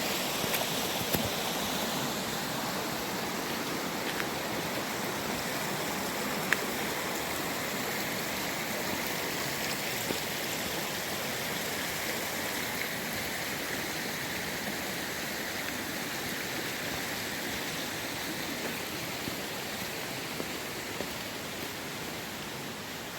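Steady rushing of a creek running high over rocks, easing slightly toward the end.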